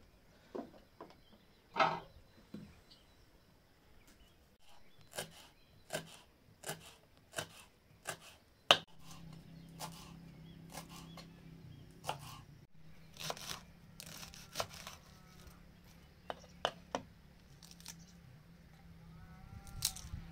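Kitchen knife chopping green garlic stalks on a wooden cutting board: sharp knocks of the blade on the board. There is a steady run of about one knock every 0.7 s near the middle, with sparser knocks before and after.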